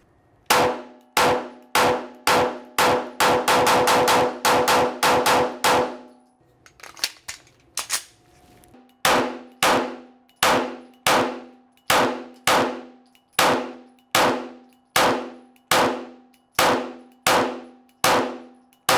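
FN 509 9mm pistol fired in two strings of shots, each ringing off the walls of an indoor range. The first string is rapid, about a dozen shots in five seconds; after a pause of about three seconds comes a slower, steady string of about two shots a second.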